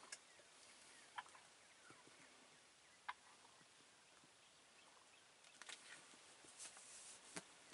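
Near silence, broken by a few faint short clucks from wild turkeys and scattered soft clicks and rustles. The clicks come thickest from about five and a half to seven and a half seconds in.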